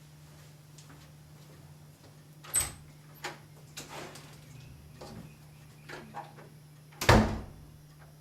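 A door being used: a sharp latch-like click about two and a half seconds in, a few light knocks and steps, then a loud heavy thump about a second before the end, over a steady low electrical hum.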